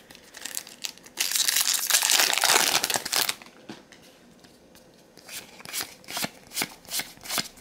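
Foil Magic: The Gathering booster pack wrapper crinkling and tearing open for about two seconds, followed a couple of seconds later by a run of sharp clicks as the trading cards are handled.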